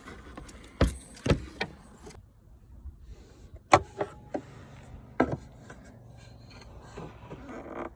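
Plastic tail light parts being handled and wiggled loose by hand: scattered clicks and knocks, about half a dozen, the sharpest a little before halfway.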